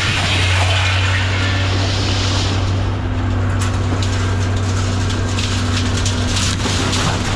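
A heavy machine running with a steady low hum, with crunching and many short clicks and knocks from about three seconds in, typical of scrap metal being handled.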